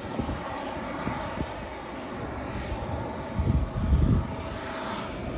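Jet airliner's engines running steadily as it moves along the runway, an even rushing noise with a louder low rumble about three and a half seconds in.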